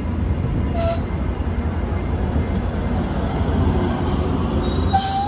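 Trinity Railway Express bilevel commuter train rolling past close by with a steady low rumble, with short wheel squeals about a second in and again near the end.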